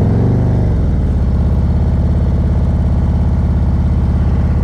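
Motorcycle engine running at low road speed. The revs rise briefly just after the start, then settle into a steady, evenly pulsing low note.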